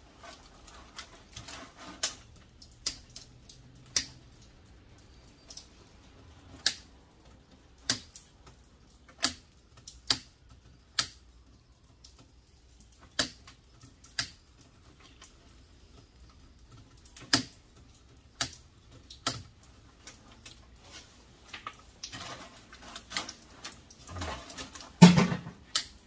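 Hand work on scrapped furnace parts and wiring: sharp clicks and snaps at uneven spacing, about one every second or two. Near the end comes a denser clatter and one heavier knock.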